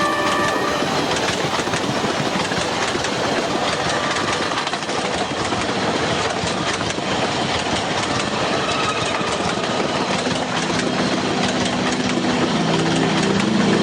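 Train noise: a steady rushing rumble of rail cars on the track, with a locomotive's engine hum coming in about ten seconds in.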